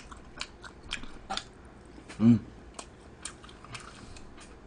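Close-miked chewing of a mouthful of stir-fried pork intestines (gopchang) and rice, with many small wet mouth clicks and smacks. A short hummed vocal sound comes a little over two seconds in.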